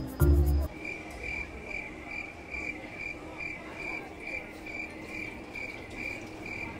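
A cricket chirping in an even run of short, high chirps, about two and a half a second, after the last notes of background music in the first second.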